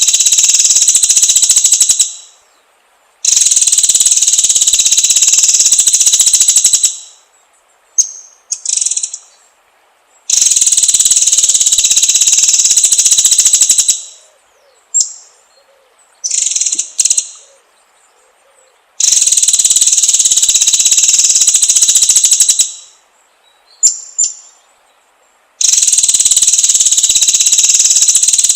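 Recorded songbird trill track, the white-rumped shama (murai batu) song used to rouse a caged shama. It is a loud, high, rapid buzzing trill held about four seconds at a time, repeated four times, with short sharp chirps in the pauses.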